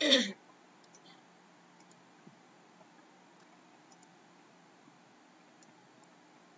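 A brief, loud swish that falls quickly in pitch right at the start. It is followed by sparse, faint computer mouse clicks over quiet room noise.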